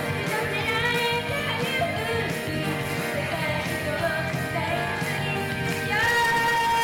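Live J-pop idol song: young female voices singing into handheld microphones over upbeat pop accompaniment, ending on a long held note that starts about six seconds in.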